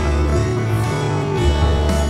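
Background music: a plucked-string melody over bass notes that change every half second or so.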